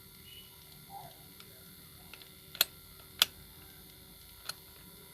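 Three sharp clicks, about two and a half, three and four and a half seconds in, the first two the loudest, over a faint steady hum.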